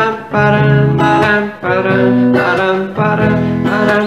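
Acoustic guitar strummed in a steady up-and-down rhythm, with the chords changing about every second and a quarter.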